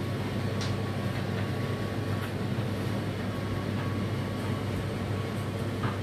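Whirlpool WFO3P33DLXUK dishwasher running near the end of its cycle: a steady low motor hum with a faint thin whine above it. Two light clicks, one early and one near the end.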